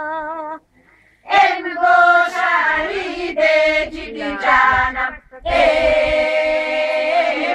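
A group of Bulgarian village women singing a folk song unaccompanied, in full open voice. A held, wavering note ends just after the start. The singing stops briefly about a second in, resumes in phrases, pauses again near five seconds, then settles into a long held note.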